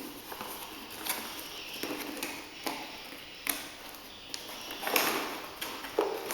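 A drill and its accessories being handled and set down: a few separate knocks and clicks, several seconds apart.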